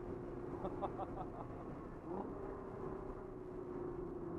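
Nissan 300ZX twin turbo's V6 engine droning steadily at cruise, heard from inside the cabin over a steady rush of wind and road noise. Its pitch shifts briefly about two seconds in.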